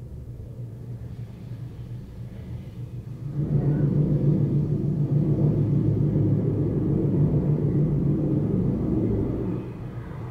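Outdoor ambience recorded through an apartment window and filtered in real time: a low rumble that swells about three seconds in, holds for about six seconds, then falls back near the end.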